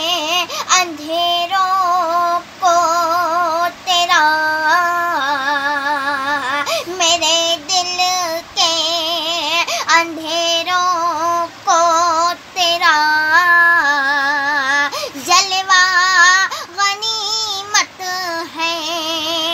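A woman sings an Urdu ghazal unaccompanied, one voice throughout. She draws out long, ornamented phrases with strong vibrato, pausing briefly for breath between them.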